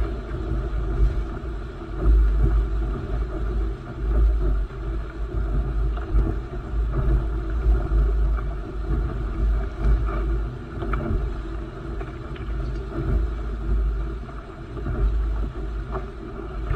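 Wind buffeting a GoPro microphone and water rushing and spraying along the hull of a Laser dinghy sailing fast on a reach. A gusty low rumble swells and fades every couple of seconds over a steady hiss of spray.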